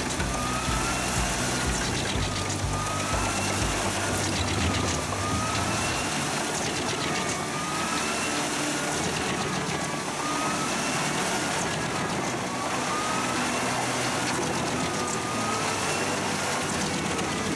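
Heavy machinery running steadily, with a whooping tone that rises and falls again about every two and a half seconds.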